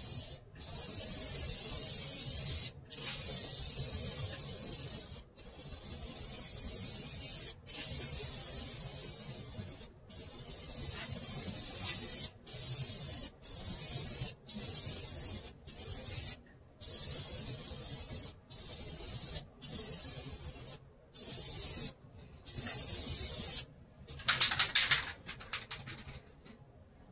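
Aerosol can of vinyl and fabric paint hissing in repeated short sprays, laying a light dusting coat: longer sprays of about two seconds at first, then quicker bursts of about a second with brief gaps. Near the end a rapid rattle of about a second and a half as the can is shaken, its mixing ball knocking inside.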